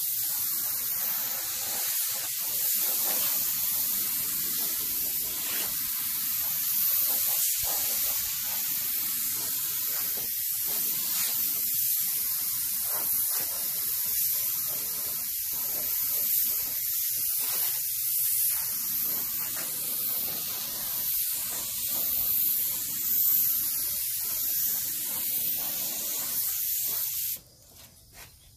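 Gravity-feed paint spray gun hissing steadily as compressed air atomises paint onto a metal panel, then cutting off about a second before the end.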